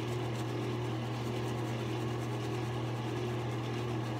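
A steady low mechanical hum, with the faint swish of a silvertip badger shaving brush working lather over the face.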